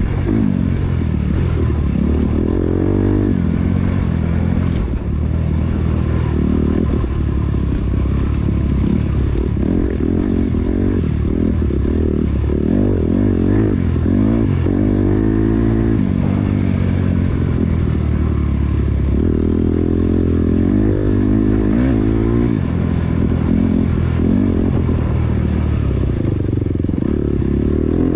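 Off-road dirt bike engine running hard, its pitch rising and falling again and again as the rider opens and closes the throttle along a tight trail, with occasional knocks from the bike over rough ground.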